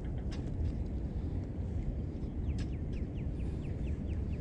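Steady low rumble of wind buffeting the camera's microphone, with a quick run of short, high, falling chirps a little past the middle.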